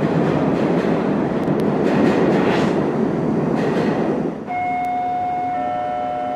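A loud, steady rushing rumble that gives way about four and a half seconds in to several steady tones held together, with a quieter hum beneath.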